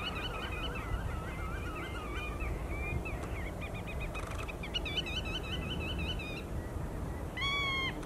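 Black-tailed godwits calling: quick runs of repeated wavering calls in several bursts, then one single louder call near the end.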